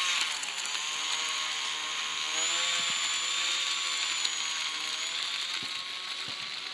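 Electric motor and propeller of a homemade foam RC airplane whining under throttle as the plane taxis away on its takeoff run. The pitch drops briefly at the start, then holds, and the sound fades as the plane moves off.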